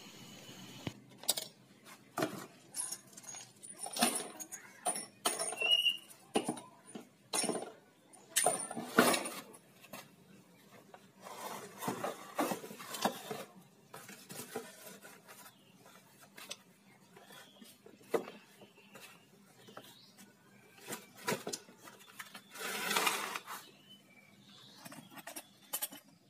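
Irregular metallic clinks and knocks as a partly dismantled Vega ZR motorcycle engine case and its loose bolts are handled and shifted. Cardboard scrapes and rustles as a flattened box is laid under the engine to catch spilled oil.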